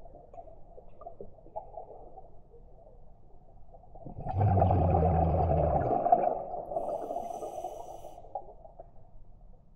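Underwater scuba regulator exhale: a loud gurgling rush of bubbles about four seconds in, lasting about two seconds with a low buzzing flutter, then fading away.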